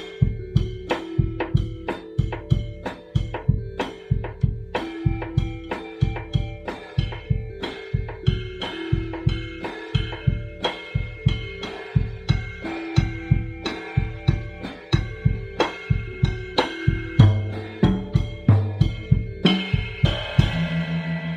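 Drum kit played with sticks: a steady groove of kick drum, snare and cymbal, several strokes a second. Near the end it breaks into a fill on the deeper drums and a ringing cymbal crash.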